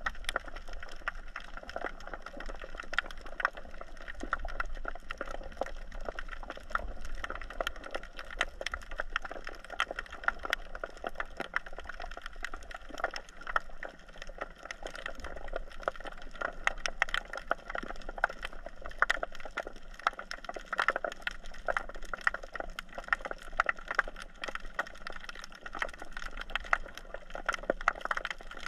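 Underwater reef ambience heard through the camera's housing: a dense, irregular crackle of sharp clicks over a steady watery hiss, the typical sound of snapping shrimp on a rocky reef.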